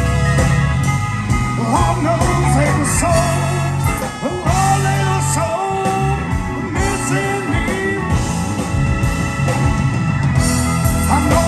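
Live blues-rock band playing: electric guitar with bending notes over bass and drums.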